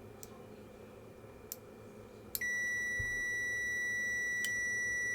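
Multimeter continuity beeper: a couple of faint clicks, then about two and a half seconds in a steady high beep starts and holds without a break. The meter is playing up, in its owner's words 'having a fit'.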